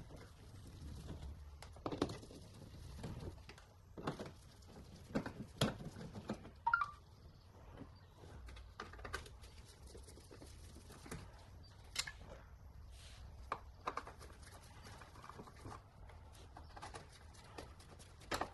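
Hands working at a car's plastic wheel-arch liner and its Torx screws: irregular faint clicks, taps and scrapes of plastic, with a few sharper knocks, over a low steady background rumble.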